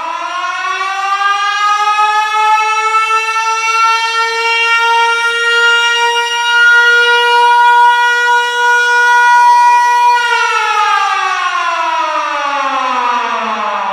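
Civil-defense-style siren winding up in a slow rising wail, holding one steady high pitch for several seconds, then winding down in a long falling glide about ten seconds in.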